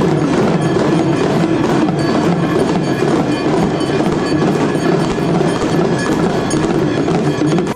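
Temple bells ringing and clanging rapidly with other struck percussion during a Hindu aarti, a dense, continuous ringing clatter that stops abruptly near the end.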